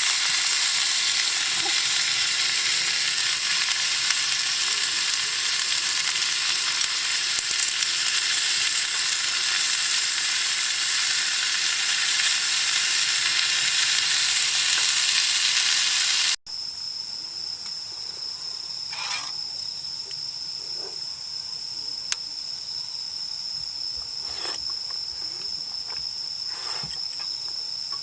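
Food sizzling in a hot frying pan, a loud, even hiss. It cuts off suddenly about sixteen seconds in, giving way to insects calling with a steady high-pitched tone and a few faint clicks.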